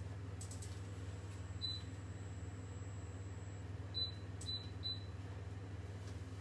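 Induction hob touch controls beeping as the settings are pressed: four short high beeps, one near two seconds in and three in quick succession about four seconds in, over a steady low hum.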